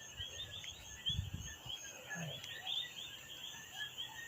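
Outdoor chorus of small animals calling, with many quick repeated chirps and a pulsing high trill throughout, and a brief low rumble about a second in.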